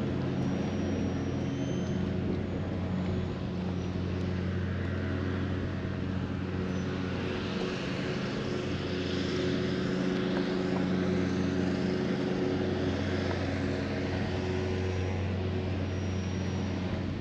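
Steady engine drone, a low hum with several even tones held throughout, with a hiss that swells in the middle.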